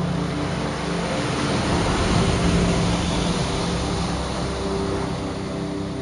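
Surf rushing and washing up the shore in a steady loud wash, with soft sustained notes of background music underneath.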